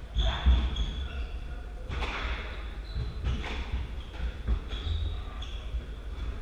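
A squash rally: a squash ball struck by racquets and hitting the court walls, a sharp echoing smack every second or so, with rubber-soled shoes squeaking on the wooden court floor.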